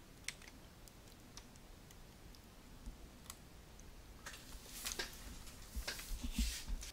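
Computer mouse and keyboard clicks: a few single clicks spaced about a second apart, then from about four seconds in a denser run of clicks and low thumps as the mouse is worked.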